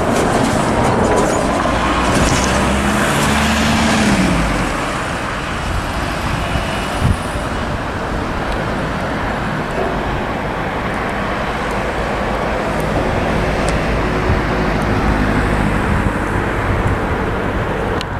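Volvo 7900 hybrid city bus pulling away close by, its drive note rising and then falling in pitch over the first few seconds, followed by steady road traffic noise. A short thud about seven seconds in.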